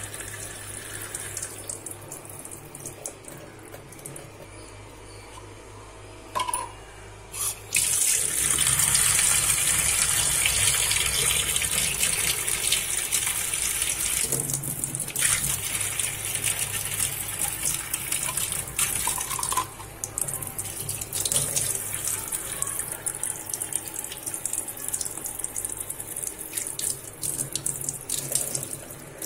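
Kitchen tap running into a steel sink, the water spraying through a homemade plastic-bottle spray head and later pouring in a single stream. The flow gets louder about eight seconds in.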